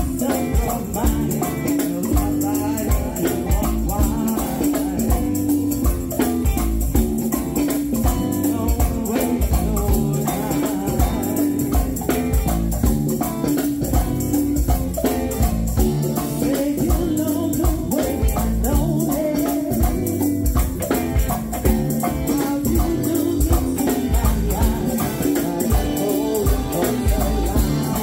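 Live go-go band playing a steady groove of drum kit and congas under bass and electric guitar, with shakers and singing.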